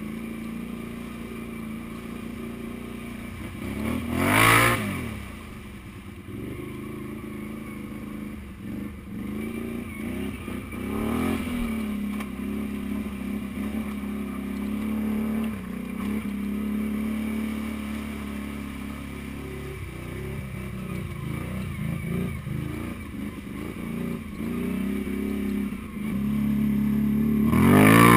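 Can-Am Renegade 500 ATV engine at low throttle while wading a shallow creek. The revs rise and fall sharply about four seconds in, which is the loudest moment, and again more gently around eleven seconds, with small throttle blips after that. Near the end the engine rises to a loud, steady higher rev.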